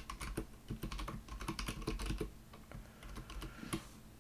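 Typing on a computer keyboard: a quick run of keystrokes that thins out to a few scattered taps in the second half, with one sharper tap shortly before it stops.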